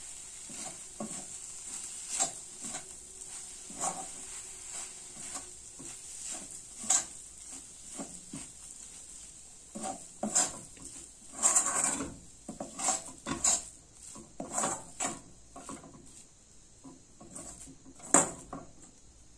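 Metal spatula scraping and knocking against a metal kadai as thick carrot halwa is stirred. The strokes are irregular, with a louder run of scrapes about twelve seconds in and a sharp knock near the end.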